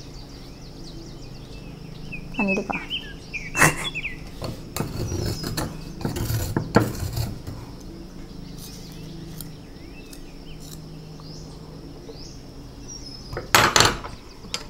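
Metal palette knives clinking and scraping against small shell containers and the glass mixing tiles while paint is scooped into the shells: scattered clinks and scrapes, a busy run a few seconds in and another near the end.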